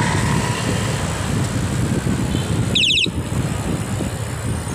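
Wind buffeting the microphone and road noise from a moving bicycle, a dense low rumble in slow city traffic. About three seconds in there is a brief high-pitched rising squeak.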